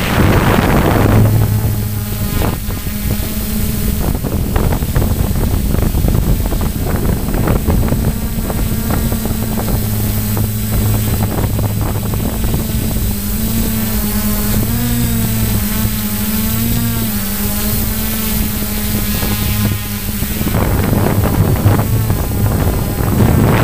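A radio-controlled model aeroplane's motor and propeller drone steadily, heard from the camera on board, with wind rushing over the microphone. The pitch wavers briefly about two-thirds of the way through, and the wind rush is heavier at the start and near the end.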